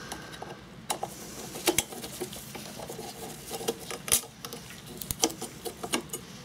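Screwdriver working the Phillips head screw out of the magneto on a 2hp Briggs & Stratton engine: scattered light metallic clicks and taps at irregular intervals as the screw is turned and the tool shifts against the engine parts.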